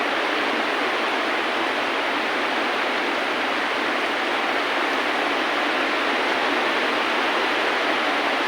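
Steady rain, an even, unbroken hiss with no separate drops or beat.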